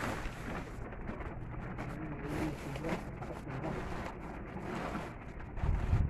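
Blue plastic tarpaulin rustling and crumpling as it is pulled and tucked by hand, with a low rumble of wind on the microphone that swells near the end.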